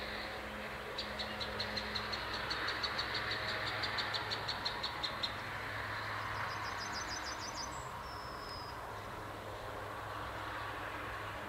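Train noise heard at a distance, a rushing that swells over a few seconds and then eases, under a steady low hum. Over it a bird chirps rapidly and evenly, about five high chirps a second for some four seconds, then gives a quicker trill and a short whistle.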